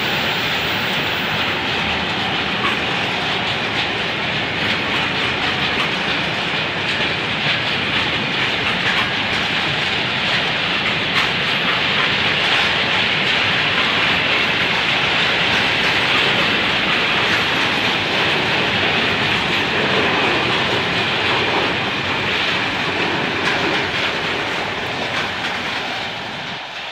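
Freight train of tank wagons rolling past: a steady noise of steel wheels on rail with faint clicking over the rail joints, growing quieter near the end as the train moves away.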